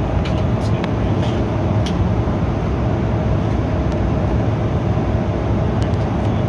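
Steady cabin drone of an Embraer 175 airliner in flight, heard inside the cabin: the even rush of its CF34 turbofan engines and airflow over the fuselage, with a faint steady hum underneath.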